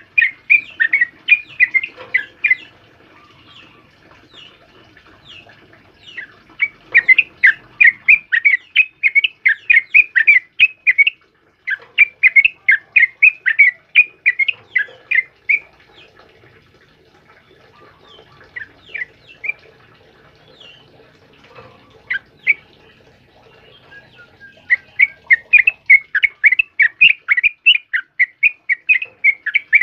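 Yellow-vented bulbul (trucukan) singing: dense runs of quick, sharp notes, about four a second, each run lasting a few seconds, with pauses between them and a few scattered single notes.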